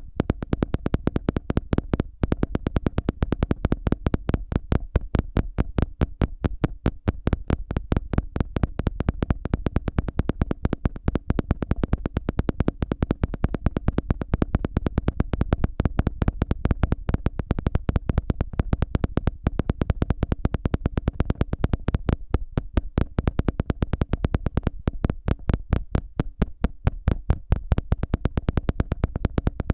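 Close-miked ASMR ear-cleaning sounds: an ear pick scratching and scraping in quick, repeated short strokes, several a second, with no pause.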